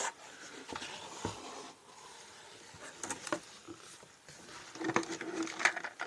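Cardboard box and packing being handled and pulled open: soft rustling and scraping with small knocks of plastic parts, busiest and loudest near the end.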